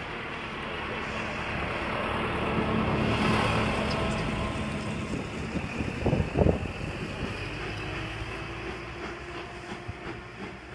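Caledonian Railway 812 class 0-6-0 steam locomotive No. 828 working a train in the distance as it approaches, a steady rumble of exhaust and running that swells over the first few seconds. A few low thumps sound about six seconds in.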